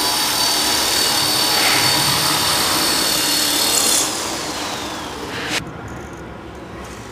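Small electric RC helicopter running on the ground: a steady high whine from motor and gears over the rush of the spinning rotors. About four seconds in the power comes off and the whine falls in pitch as the rotors wind down, then the sound drops away abruptly.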